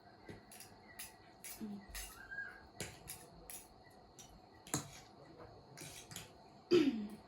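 Irregular light clicks and taps of dishes, utensils and food containers being handled, with a louder knock about 4.7 s in and another about 6.8 s in.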